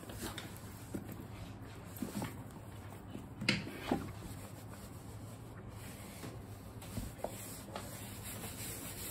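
A wet wipe rubbing and scuffing over a pebble-leather handbag, with two louder knocks close together a little under halfway through.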